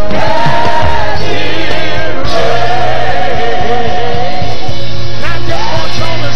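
Live gospel worship music: a band playing with voices singing long held notes.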